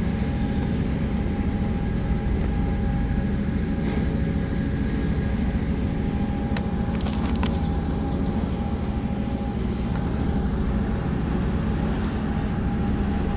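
Boat engine running steadily under way, a low drone with a faint steady whine, heard from inside the cabin. A few short sharp knocks come about halfway through.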